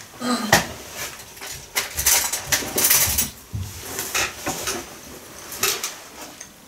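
Kitchen handling sounds as a spoon is fetched: scattered clinks and knocks of utensils and crockery with some rustling.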